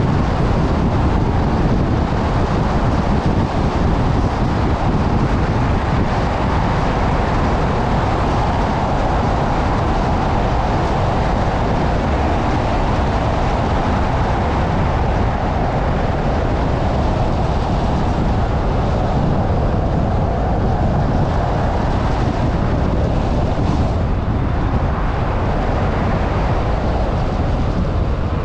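A car driving steadily: a continuous road and tyre noise with a low rumble, unbroken throughout.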